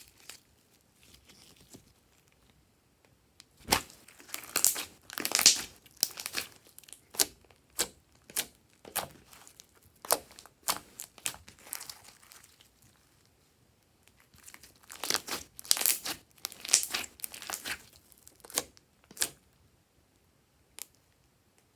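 Clear glitter slime being handled, a quick series of sharp crackling clicks and pops. The pops come in two bunches with a quiet pause between them and one last pop near the end.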